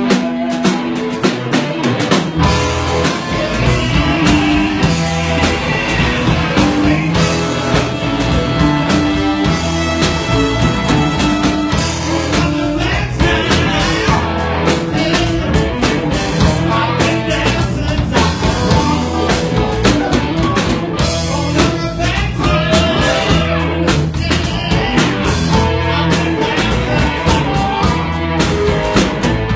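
Live blues-rock band playing: electric guitars, bass and a drum kit keeping a steady beat.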